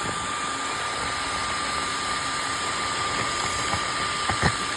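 3D printer running a print: a steady fan hiss with a thin, constant high whine, and a few light clicks near the end.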